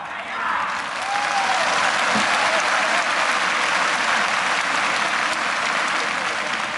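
Large arena crowd applauding, swelling up about half a second in and easing off near the end.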